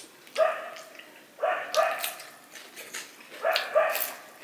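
Dogs barking: about five short barks in three bursts, mostly in quick pairs.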